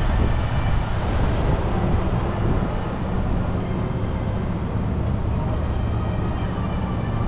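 Steady, low rumble and hiss of wind buffeting a walking action camera's microphone outdoors.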